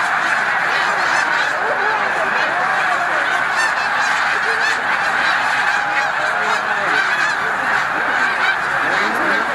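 A huge flock of snow geese calling at once, a dense, steady din of countless overlapping honks from birds in flight and on the water.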